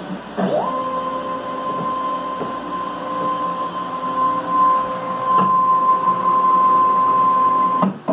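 Stepper motors of a CNC router driving the gantry through a homing cycle at a fast seek rate. A steady whine rises to pitch about half a second in, holds, and stops abruptly near the end.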